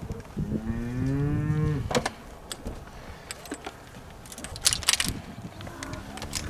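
Cow mooing: one long low moo about half a second in, and a second moo starting near the end. A few sharp clicks come between them.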